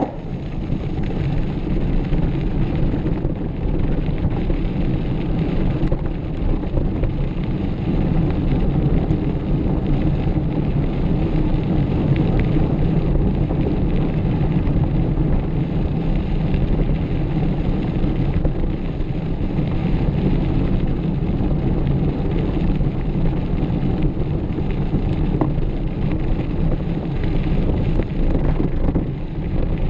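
Wind buffeting the microphone over the steady rumble of a mountain bike riding along a dirt trail.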